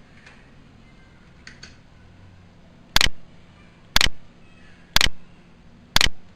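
Four loud, sharp clicks, evenly spaced one second apart, in the second half. Fainter small ticks come earlier.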